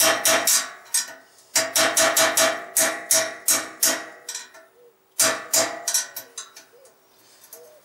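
Hammer blows on a steel rod driving the old bearing race out of a steel frame's steering head tube, struck upward from below. Quick runs of sharp metallic strikes with a ringing note, broken by short pauses.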